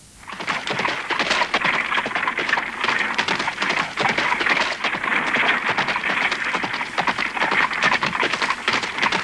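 Horse-drawn carriage wheels rolling over a dirt and gravel road: a dense, steady crackle of grit under the rims that starts abruptly just after the music fades.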